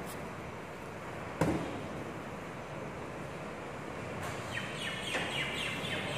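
A distant recycling truck at work over steady background noise. There is a single sharp knock about a second and a half in, and a quick run of high squeaks near the end.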